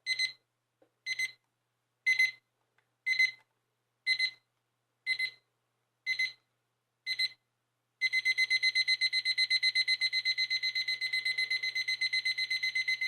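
Wendox W692E projection alarm clock's electronic beeper sounding its alarm. It gives eight short high beeps about once a second, then from about eight seconds in switches to a rapid, unbroken string of beeps.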